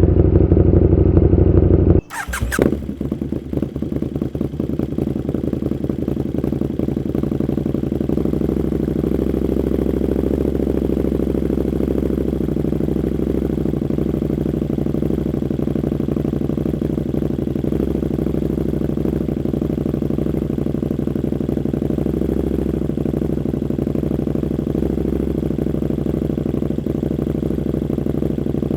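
KTM Super Duke 1290 R's V-twin through an Austin Racing V3 150 mm exhaust. It runs loud for about two seconds, cuts off abruptly, gives a short pop, and then idles steadily.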